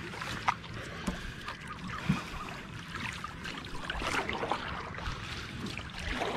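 Water sloshing and splashing around a small wooden boat (thoni) underway, with scattered light knocks.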